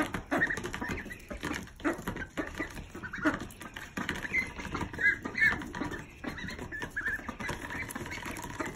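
Young ducks dabbling and pecking in a small bowl, with many quick bill clicks, scrapes and wet slurps. A few short, high peeps come in around the middle.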